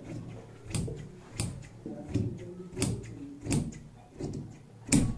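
Large brass-handled tailor's shears cutting a straight line through chikan-embroidered cotton fabric: a steady series of sharp snips, about one every 0.7 seconds, the last near the end the loudest.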